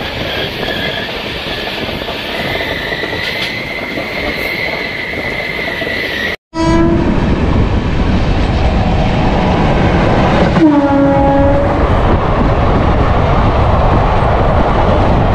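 Passenger train running, louder after a sudden cut about six seconds in, with the locomotive horn sounding twice: a brief blast right after the cut and a longer blast of about a second near eleven seconds. Before the cut, a quieter steady noise with a faint high hum, heard from inside the coach.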